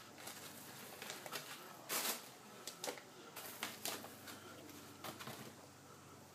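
Unpacking handling noise: foam packing blocks being pulled off a plastic-wrapped amplifier, with irregular rustles and scrapes, loudest about two seconds in.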